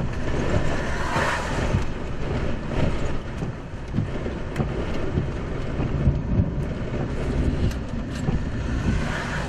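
Strong wind buffeting a vehicle as a steady low rumble, with rain on the windshield and a few sharp ticks.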